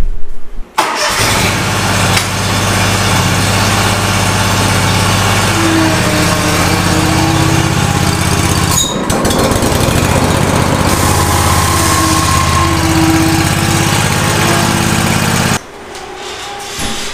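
Scag Tiger Cat zero-turn mower's engine running steadily at a loud level, a deep hum under a broad rushing noise. It comes in abruptly about a second in, dips briefly midway and cuts off suddenly near the end.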